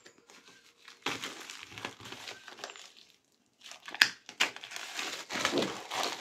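Clear plastic shrink wrap being peeled off a book and crumpled by hand, in irregular crinkling spells with a short pause, and one sharp crackle about four seconds in.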